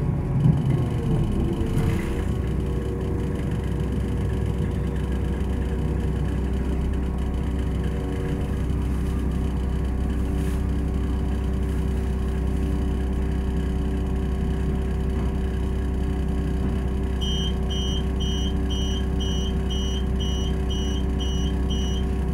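Cabin sound of a Class 172 diesel multiple unit coming to a stand: a falling whine as it slows over the first couple of seconds, then its underfloor MTU diesel engine idling steadily at the platform. Near the end, door beeps sound about twice a second.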